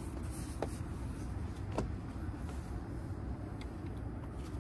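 Steady low outdoor rumble with a few faint, short knocks spread through it.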